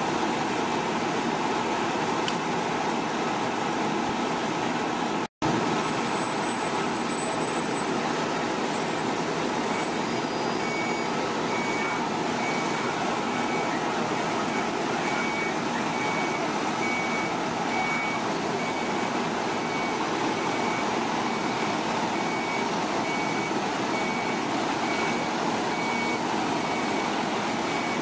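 Fire apparatus diesel engines running steadily with their pumps engaged, a dense mechanical noise that briefly cuts out about five seconds in. From about a third of the way through, a high electronic beep repeats about once a second, like a vehicle's backup alarm.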